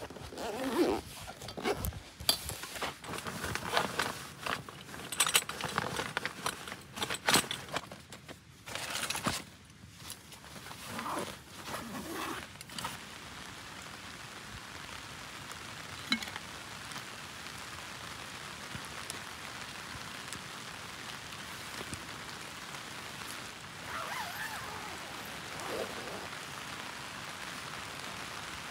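Camp stove and metal cookware being handled and packed into a pouch, with short clinks and rustling for the first dozen seconds or so; then a steady hiss of light rain falling on the tent and grass.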